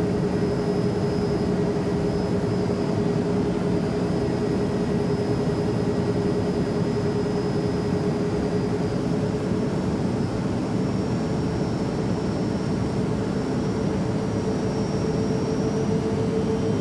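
Steady airplane noise: an even rushing sound with a steady hum in it that edges up in pitch over the last few seconds.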